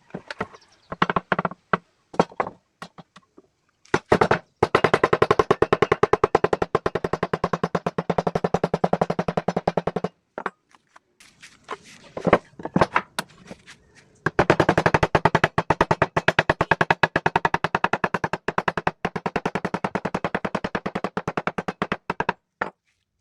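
Rapid runs of sharp knocks, about ten a second, in two long stretches, with scattered single knocks before and between them.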